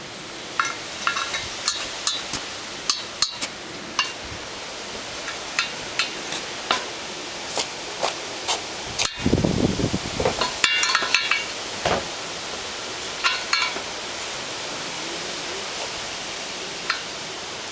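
Wire spokes clinking and tapping against a motorcycle wheel's hub and rim as they are laced in: irregular sharp metallic clicks and ringing clinks over a steady hiss, with a dull low bump about nine seconds in.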